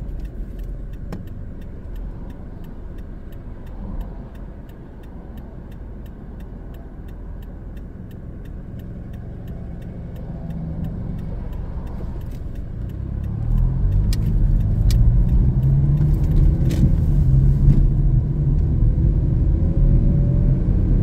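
Car engine and road rumble heard from inside the car, with a faint regular ticking. About thirteen seconds in the car pulls away: the engine gets louder and climbs in pitch as it accelerates.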